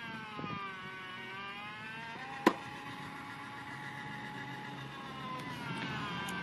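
Battery-powered tennis ball launcher (runs on four C-size batteries): its electric motor whines, the pitch sagging, then a sharp pop about two and a half seconds in as a ball is fired. Afterwards the motor spins back up, and its pitch begins to sag again near the end.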